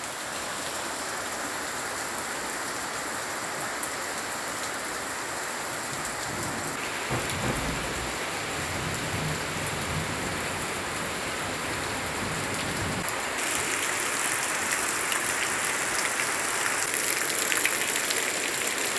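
Heavy rain pouring onto bare red earth, puddles and grass: a dense, steady hiss. A low rumble sounds through the middle, and for the last few seconds the rain is louder and sharper.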